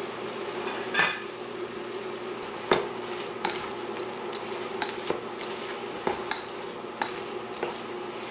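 A spatula tossing sauced cauliflower in a steel wok, giving irregular clinks and scrapes against the metal, about nine in all. Under them is a steady buzzing hum from the induction cooktop.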